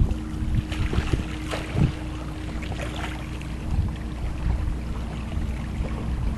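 Small waves lapping and slapping against a kayak hull, with irregular splashes and knocks, over a steady low rumble of wind on the microphone and a faint steady hum.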